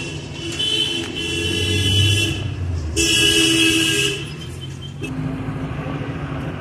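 Vehicle horns honking in street traffic: one long blast of about two seconds, then a shorter one about a second later, over a steady low traffic rumble.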